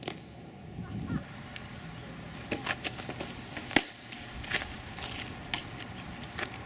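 A softball smacking into a catcher's mitt right at the start, then scattered sharp knocks and clicks, the loudest a single pop a little before four seconds in.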